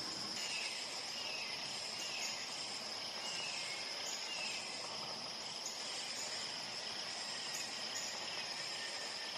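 Steady high-pitched drone of insects, likely crickets. Over roughly the first five seconds a series of short, faint, falling calls repeats about every half second.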